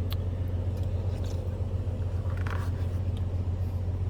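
A steady low hum with a few faint clicks and a brief soft rustle about two and a half seconds in.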